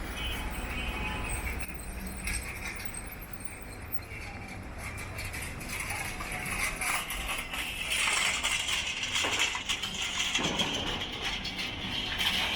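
Busy indoor market background: a steady hiss and low hum with scattered clicks and clinks, growing louder from about six seconds in.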